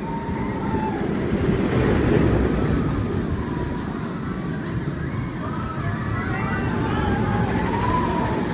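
Steel roller coaster train rumbling along its track, with riders' faint screams rising and falling over the noise.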